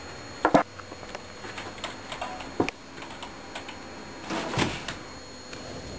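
Typing on a computer keyboard: scattered key clicks, with a few louder knocks, a sharp pair about half a second in and a longer clatter around four and a half seconds.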